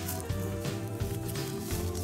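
Background music with a string of held notes.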